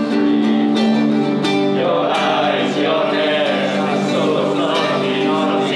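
A group of men singing together to a strummed acoustic guitar.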